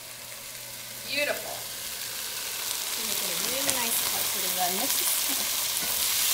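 Chopped red onions sizzling in hot olive oil in an enamelled cast-iron pot while being stirred with a wooden spoon; the sizzle grows steadily louder.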